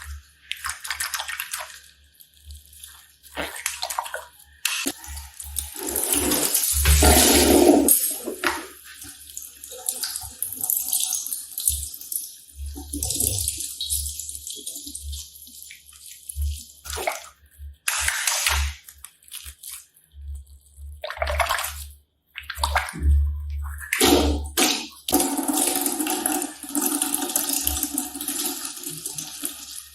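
Slime being squeezed and worked by hand: irregular wet squelching and crackling noises that come and go, with short low knocks from handling.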